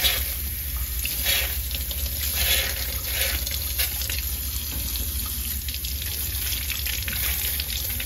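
Kitchen faucet running into a stainless steel sink, the stream splashing over a raw lobster tail held under it as it is rinsed.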